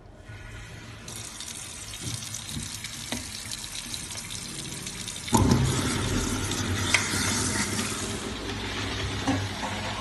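Tap water running into a sink drain. About five seconds in, a kitchen garbage disposal switches on with a sudden loud hum and grinds the potato, carrot and leafy vegetable scraps as the water keeps flowing.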